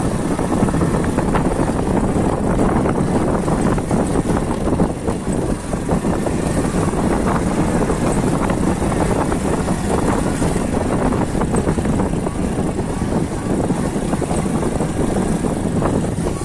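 Small motorcycle's engine running at a steady pace while riding a rough gravel track, heard from the rider's seat with road and rushing noise mixed in.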